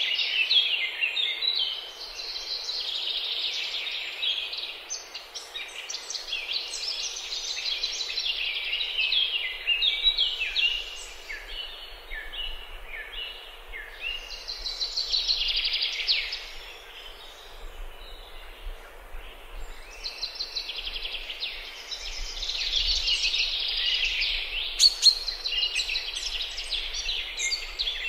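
Songbirds singing together in a dense chorus of overlapping chirps and trills, swelling and fading in waves. A single sharp click stands out near the end.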